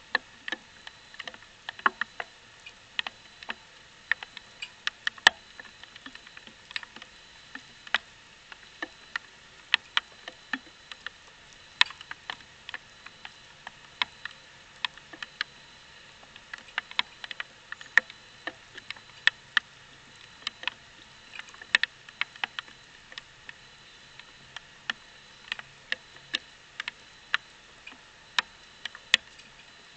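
Irregular sharp ticks and taps, two or three a second, over a faint steady hiss: water drops striking the trail camera's housing in wet weather.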